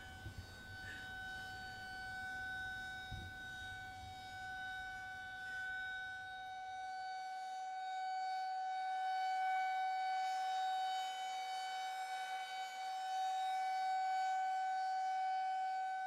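Civil defense siren sounding one steady, unwavering tone: an attack warning of a possible nuclear strike. It grows louder about halfway through, and a low rumble underneath stops about seven seconds in.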